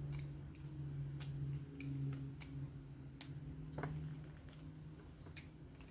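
Scattered small clicks and taps of a small Torx driver and metal knife parts being handled as the pocket-clip screws of a folding knife are snugged down, over a low steady hum.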